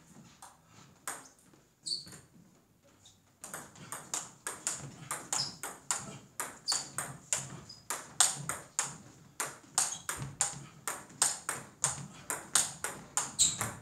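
Table tennis rally: the ball clicking off the bats and bouncing on the table, several hits a second, in quick even succession. After a few scattered taps, the rally gets going about three seconds in and keeps up.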